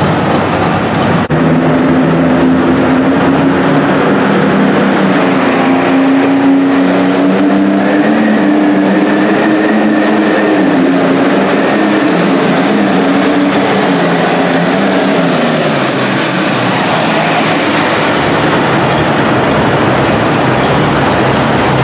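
Light-limited super stock pulling tractor engine at full power dragging a weight sled, with a high whine that rises about six seconds in, holds, then falls away as the engine comes off near the end.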